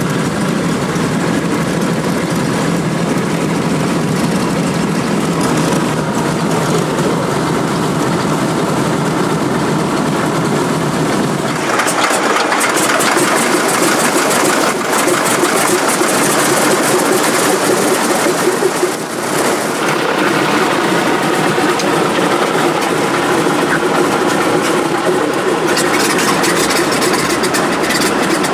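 Engines of a 1966 Bushmaster 2000 Trimotor running steadily, heard from inside the cabin beside a spinning propeller. About twelve seconds in the deep rumble thins and a louder, harsher drone takes over.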